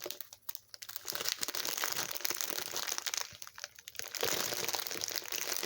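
Small plastic bags of diamond painting drills crinkling as they are handled and sorted, in two spells with a short pause about three seconds in.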